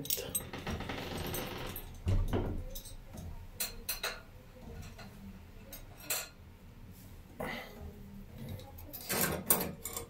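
Handling a stainless steel bolt latch and screwdriver against a wooden door: a scraping rustle for the first two seconds, then scattered light metallic clinks and taps.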